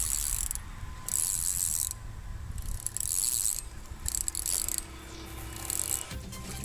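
Fishing reel cranked in short spells, its gears giving a fast, high ratcheting whir about five times, likely as line is reeled in on a bass. A low rumble runs underneath.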